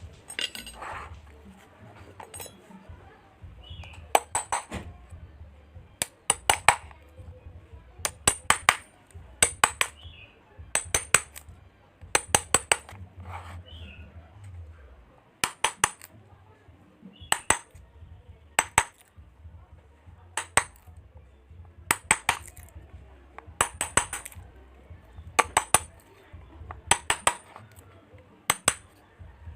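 Sharp metallic clinks in quick clusters of two to four, about one cluster every second and a half, over a low hum.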